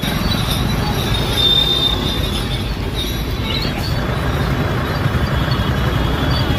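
Busy street traffic and vehicle engine and road rumble, heard from inside a shared jeep through its open window, at a steady level. A brief high-pitched whine stands out about one and a half seconds in.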